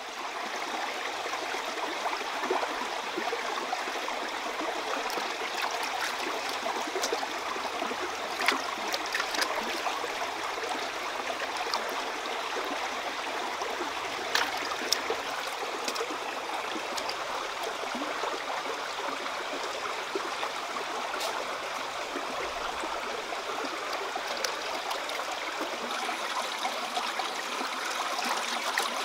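Shallow stream running steadily, with a few brief splashes as hands wash octopus in the water.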